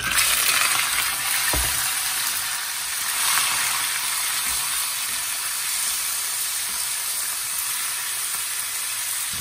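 Pork frying in hot oil in a pan: a loud, steady sizzle that starts abruptly, with a light knock about a second and a half in.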